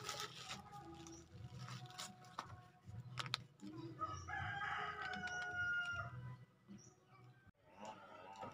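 A rooster crowing once, one long call lasting about two and a half seconds from about four seconds in, with a few faint clicks before it.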